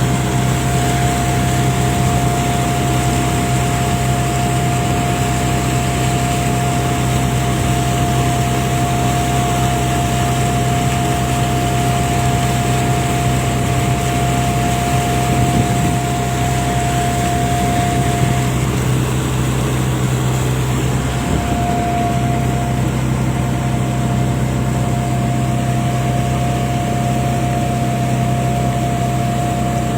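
A fishing boat's engine running steadily at an even speed, with a constant high whine over it that drops out for a couple of seconds past the middle.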